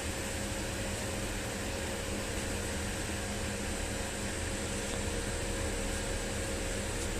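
Argon (TIG) welder working on a cast aluminium alloy wheel: a steady, even hiss with a constant hum underneath.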